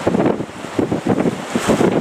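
Strong wind buffeting the microphone in uneven gusts, over the rush of sea waves.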